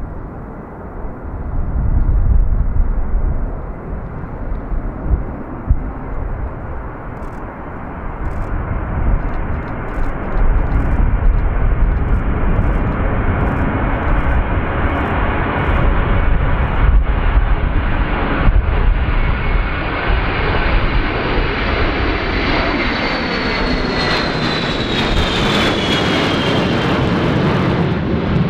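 Boeing E-3A Sentry's four Pratt & Whitney TF33 turbofans at takeoff power: a deep rumble that grows louder as the aircraft lifts off and climbs out close by. Near the end a high whine drops in pitch as it passes.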